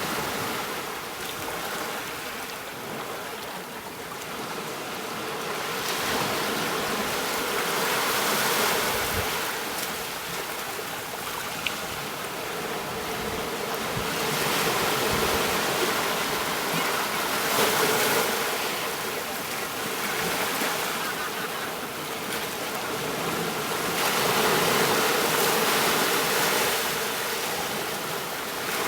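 Ocean surf washing onto a beach, swelling and easing back in slow surges every several seconds.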